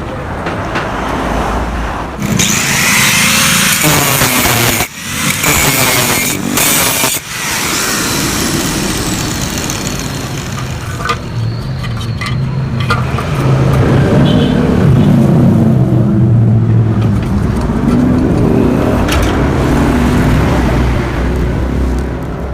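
Yamaha RX-King's two-stroke single-cylinder engine running through its gutted ("bobok") exhaust, revved hard in bursts with a couple of sudden throttle drops in the first half, then running with a lower, wavering note. The hollowed-out muffler is meant to give the crisp, rasping "garing ngorok" exhaust sound.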